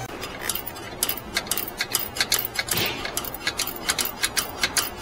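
Hand socket ratchet clicking in quick, slightly uneven strokes as a bolt is turned: a few faint clicks, then from about a second in a steady run of about four to five sharp clicks a second.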